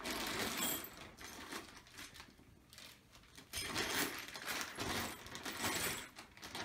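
Clear plastic bags of metal hardware crinkling as they are handled, with the metal fittings inside clinking against each other. Busy at the start, a brief lull about three seconds in, then more handling.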